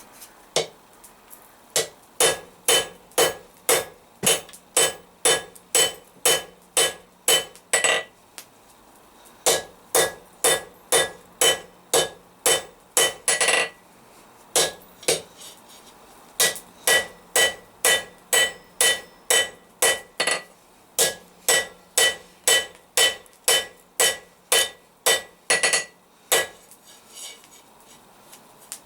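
Blacksmith's hammer striking hot steel on an anvil to draw out a stem: a steady run of ringing blows, about two or three a second, in several bursts broken by short pauses.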